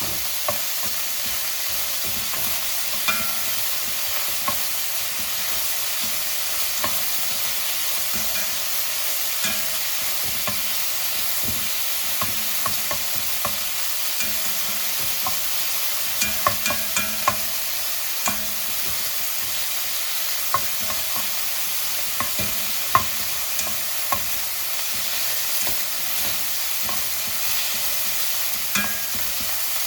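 Fried rice sizzling in a hot pan while it is stirred and tossed, with a steady hiss and irregular sharp clicks and scrapes of the utensil against the pan.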